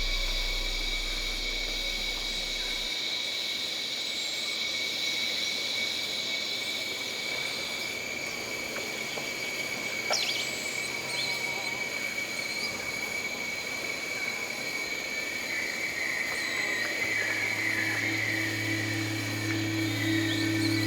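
Outdoor nature ambience: steady high insect trilling that fades about a third of the way in, a click and a few short bird chirps midway, and a warbling call in the last few seconds, when a low steady hum also comes in.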